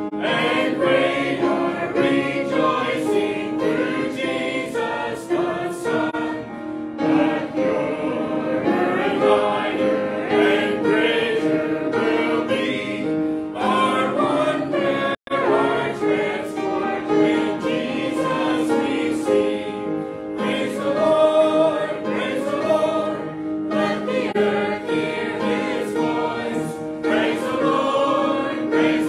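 Congregation singing a hymn together. The sound cuts out for an instant about halfway through.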